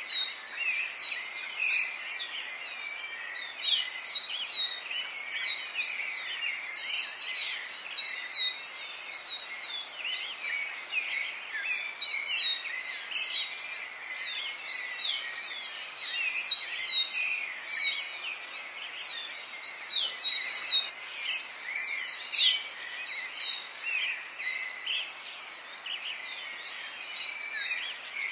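A dense chorus of forest birds, many quick chirps sweeping sharply downward in pitch, overlapping several times a second over a steady background hiss.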